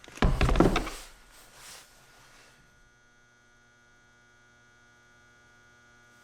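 A second of rustling, knocking handling noise as the plastic toolbox lid is worked into place, then a faint, steady electrical hum.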